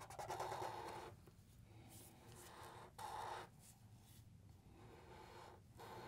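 Faint strokes of a Sharpie marker drawing on paper, in a few short scratchy passes.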